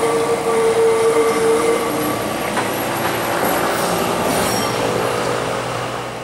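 Historic Lisbon tram on curved street track, its wheels giving a steady high-pitched squeal for about the first two seconds. Rolling rail noise follows, fading near the end.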